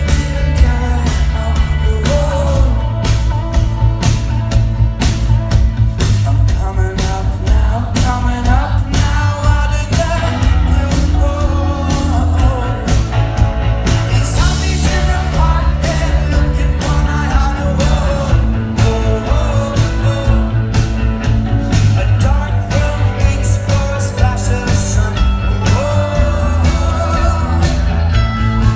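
Indie rock band playing live: drums, bass and guitars with a male lead voice singing over them.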